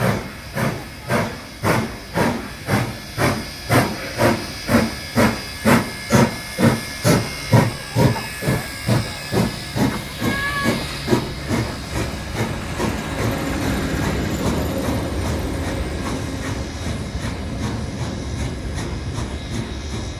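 Steam locomotive 3265, a NSW 32-class 4-6-0, pulling away with a train: a steady run of exhaust chuffs with hissing steam, about two a second and slowly quickening. After about twelve seconds the chuffs fade into the steady rumble of the carriages rolling past.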